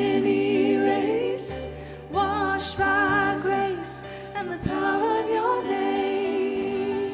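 A contemporary worship song sung by a group of voices over a band, in long held phrases with a few short breaths between them.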